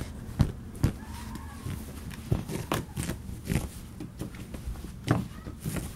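A Tibetan terrier puppy digging and chewing at its fabric dog bed: irregular scuffing and rustling with several sharp knocks.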